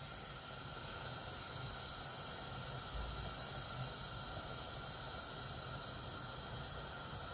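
Faint steady hiss from a lit gas hob burner heating a wet, empty frying pan as the water dries off it, with a soft low bump about three seconds in.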